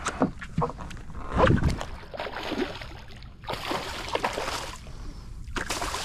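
A hooked fish thrashing and splashing at the surface right beside a boat in several bursts, the loudest about a second and a half in and a longer one in the second half, with wind on the microphone.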